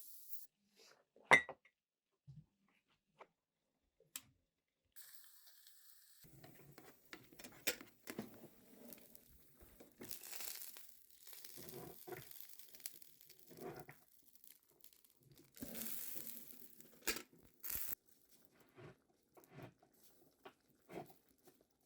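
Food-preparation handling noises: irregular rustling and tearing, as of crinkly wrapping or flatbread being handled, broken by scattered sharp clicks and knocks of kitchenware.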